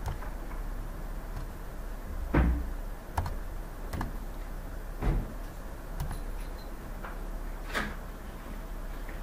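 Scattered computer mouse clicks and small knocks on a desk, a second or so apart, the loudest a dull thump about two seconds in, over a steady low hum.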